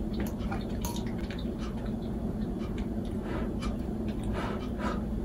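Short puffs of breath blowing on a forkful of hot pasta to cool it, with a few small clicks, over a steady low hum.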